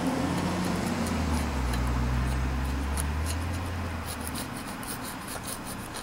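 Metal scraper scraping carbon deposits off a small engine's block around the valves, a run of short scratchy strokes, thickest in the second half. Under it a low steady hum swells about a second in and fades out after about four seconds.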